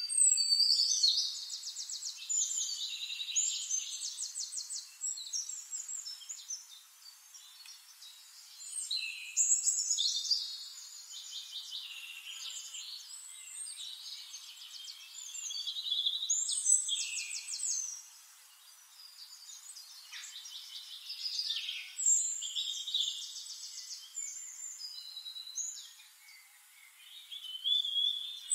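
Songbird song: high-pitched phrases of fast trills and twitters, loud bursts a few seconds apart with quieter twittering between them. It is not a peacock's call.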